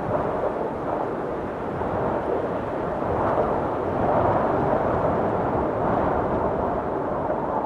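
Stormy wind blowing hard and buffeting the microphone in a steady rush, swelling louder about three seconds in.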